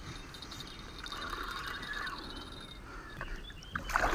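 Quiet riverside ambience with faint bird chirps; near the end, a sudden loud splash of water as a hooked wels catfish is grabbed by hand at the side of the boat.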